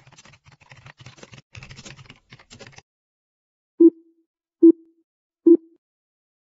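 A typing sound effect, quick irregular keyboard clicks for about three seconds, then three short, loud, low-pitched blips about 0.8 s apart.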